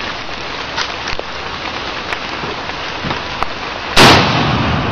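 A single loud rifle shot about four seconds in, its report trailing off, over a steady hiss of background noise.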